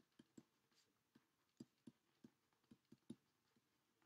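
Faint, irregular ticks of a stylus tapping and sliding on a tablet surface while a word is handwritten, about a dozen small taps.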